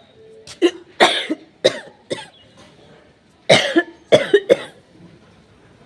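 A person sneezing in a string of short, sharp bursts, in two bouts: the first about half a second in, the second about three and a half seconds in.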